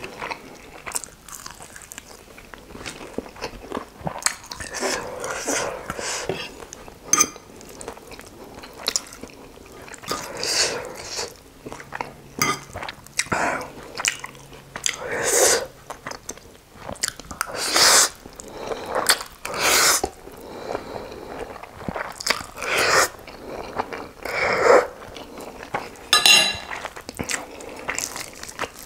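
Crunchy bites into fried chicken wings and chewing, heard close up through a clip-on microphone. The bites come in irregular bursts every second or two, with mouthfuls of spicy noodles in between.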